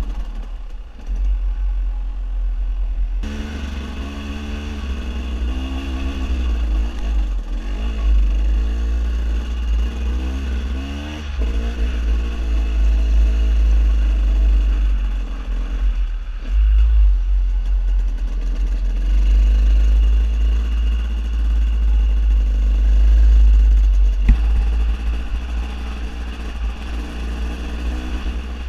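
KTM 250 EXC two-stroke enduro motorcycle being ridden on a dirt trail, its engine note rising and falling with the throttle, under a heavy low wind rumble on the microphone. One sharp knock late on.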